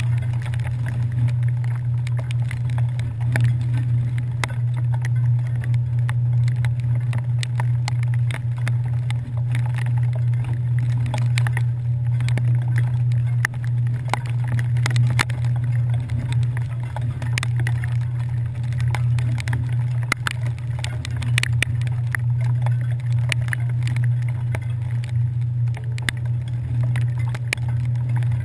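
Ferry engines running with a steady low drone, heard through a waterproof camera housing, with scattered small ticks.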